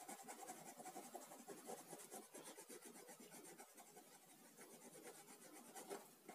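Faint scratching of a coloured pencil on paper, in quick short strokes.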